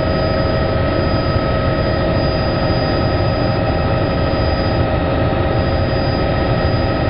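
Helicopter running in flight, heard from aboard: a loud, steady rumble with several steady whining tones over it.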